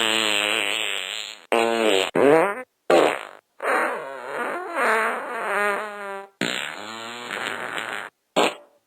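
A run of fart sound effects, about seven in a row with brief silent gaps between them. Each is a pitched blurt whose pitch wobbles; some are short, one runs nearly three seconds.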